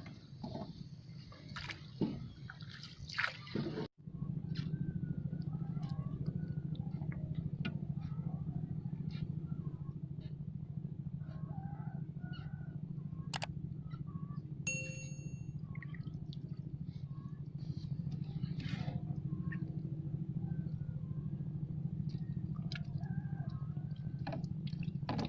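A steady low hum, like a motor running, begins after an abrupt cut about four seconds in, with faint scattered clicks over it.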